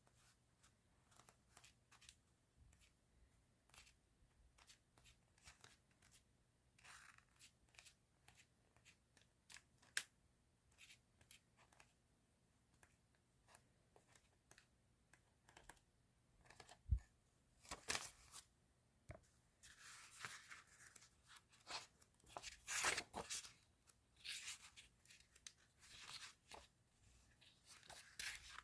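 Faint handling of paper and plastic stationery: rustling, tearing and small clicks, growing louder and crinklier in the second half, with a single low knock a little past the middle.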